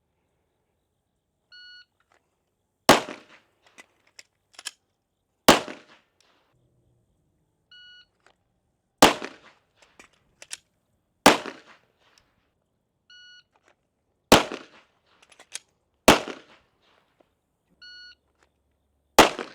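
Shot timer's start beep sounds four times, each followed about a second later by handgun shots: two shots about two seconds apart for the first three strings, and one shot for the last.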